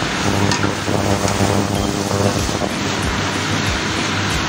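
Stir-frying: pancit canton noodles and vegetables sizzling in a wok as a spatula tosses them, with a few light scrapes and a steady low hum underneath.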